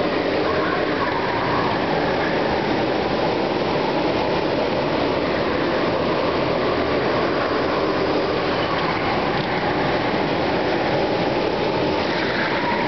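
Several go-kart engines running continuously as karts lap a track inside a large hall, with a higher whine rising and falling near the start and again near the end as a kart passes close by.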